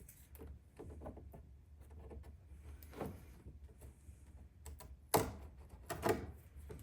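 Tap and die set case being handled and wiped: a few scattered knocks and clicks, the loudest about three seconds in and twice near the end, over a steady low hum.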